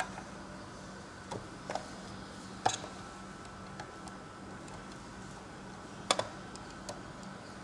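Scattered light clicks and taps from the plastic cover of a Danfoss refrigeration pressure switch being fitted and pressed by hand, over a low steady hum.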